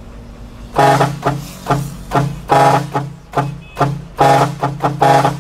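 Truck's electric air horns played as a melody: about a dozen short and longer toots at different pitches, starting about a second in.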